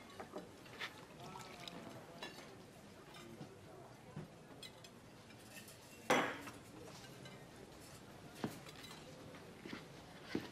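Faint clinks of glasses and dishes over a low murmur of voices, with scattered small knocks and one louder knock about six seconds in.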